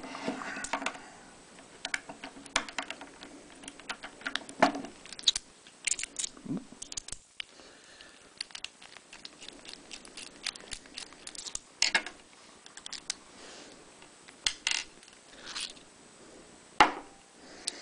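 Small metal clicks, taps and scrapes of a Yale Y210 pin-tumbler lock cylinder being taken apart by hand to remove its core, with a sharper knock near the end.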